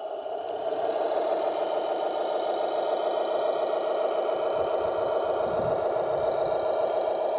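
A radio-controlled model construction vehicle running steadily with an engine-like drone and some rattle. It grows louder over about the first second, then holds.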